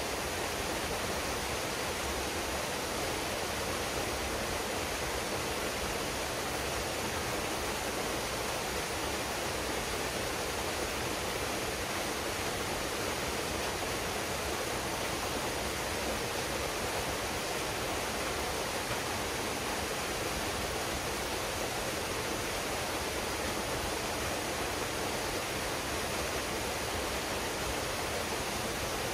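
Waterfall pouring steadily: an even, unbroken noise of falling water that does not change.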